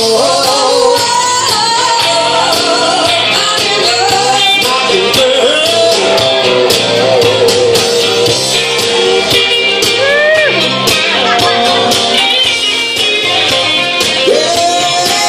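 Karaoke performance: a rock backing track with guitar playing over a PA, with live singing into microphones.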